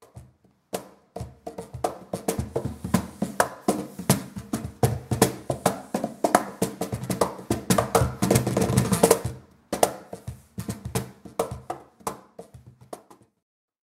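Gon Bops Flamenco cajon played by hand with the microphone up close: a fast, dense run of slaps and bass tones on the wooden front, with the guitar-wire snare rattling and a buzz audible under the bass. The playing thins out after about nine seconds and stops near the end.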